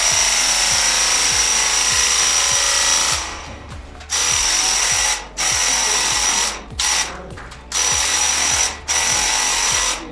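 Graco Ultra corded airless handheld paint sprayer spraying: a loud hiss with a steady high whine. It comes first in one burst of about three seconds, then in about five shorter bursts of around a second each. Each burst cuts off sharply as the trigger is let go at the end of a pass and starts again when it is pulled.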